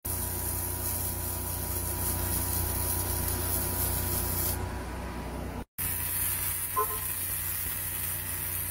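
Arc welding on a truck axle drive spindle: a steady, loud hiss and sizzle of the arc. It breaks off for an instant a little past halfway, then carries on.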